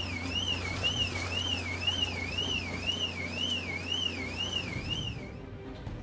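A car alarm sounding, its single tone sweeping up and down about twice a second over a steady low hum; it stops about five seconds in.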